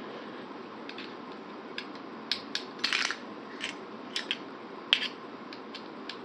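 Scattered light clicks and taps of small hard parts being handled: screws, an Allen key and a polymer shotgun rail mount. A cluster comes two to three seconds in, and the sharpest click comes near five seconds.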